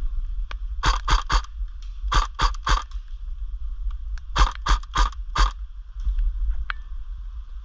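Airsoft gun firing quick strings of shots: three, then three more, then four, about four shots a second, over a steady low wind rumble on the microphone.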